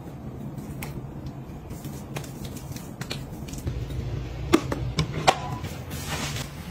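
Small clicks and taps of skincare bottles and jars being handled on a shelf, with a couple of sharper knocks about two-thirds through, over a low steady hum. A brief soft rustle comes near the end.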